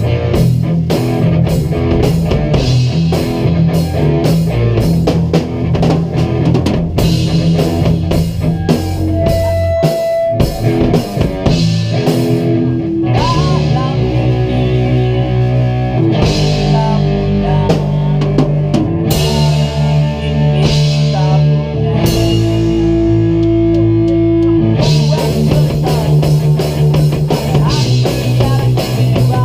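A rock band jamming live: a drum kit keeping a fast, steady beat with cymbals over loud electric guitars playing held chords.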